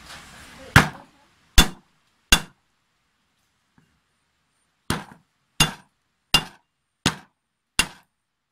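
Flat of a kitchen knife blade whacking garlic cloves against a wooden chopping board to crush them: eight sharp whacks, three about 0.7 s apart, a pause of about two and a half seconds, then five more at the same pace.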